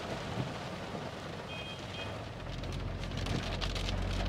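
Rain falling and splashing onto a flooded street, with a low vehicle hum growing louder in the second half.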